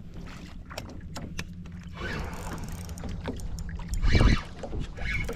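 Small boat on water: water noise and hull sounds with a low wind rumble, scattered light clicks, and a heavy thump about four seconds in.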